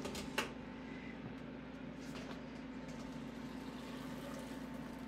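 Two sharp metal clinks as a stainless-steel pasta pot's strainer insert is lifted, then water draining and trickling out of the cooked noodles over a steady low hum.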